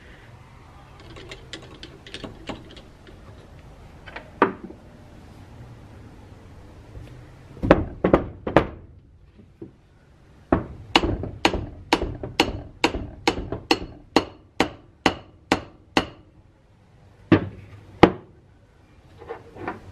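A hammer tapping on the cryocooler's metal housing, each blow a sharp ringing knock. After some light handling clicks come three blows, then a steady run of about a dozen at roughly two a second, then two more near the end.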